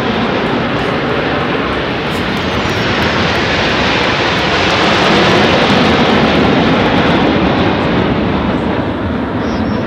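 Aermacchi MB-339 jet trainers flying overhead in formation, a loud steady jet roar that swells about halfway through as they pass.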